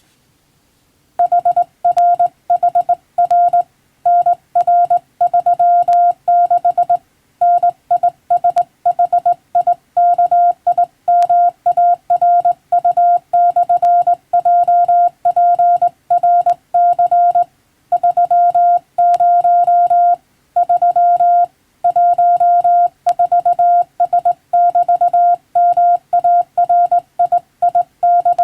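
Morse code sent by hand on a telegraph key: one steady mid-pitched beep keyed on and off in dots and dashes, starting about a second in, with short pauses between characters and words.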